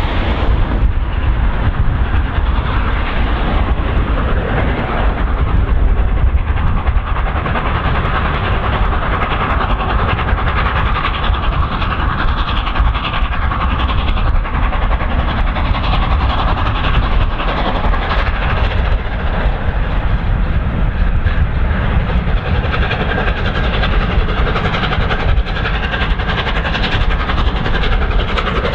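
Three-cylinder LNER A1 Peppercorn Pacific steam locomotive 60163 Tornado working hard as it draws nearer with its train: a steady, loud exhaust beat under load, with the run of the coaches on the rails behind.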